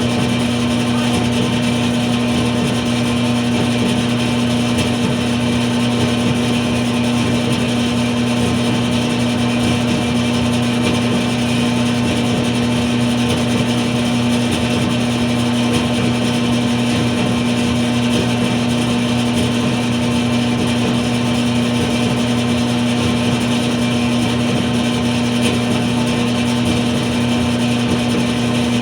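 Dryer running steadily, a constant motor hum under an even rushing noise.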